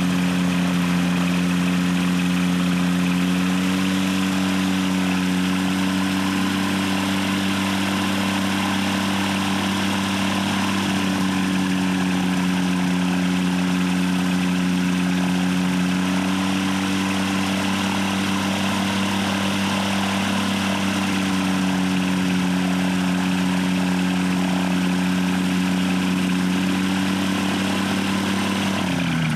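Powered hang glider (ultralight trike) engine idling at a steady, unchanging pitch while the trike waits on the ground before takeoff.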